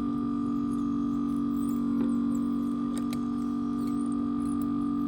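Steady electrical hum from bench equipment, unchanging throughout, with a few faint light ticks over it.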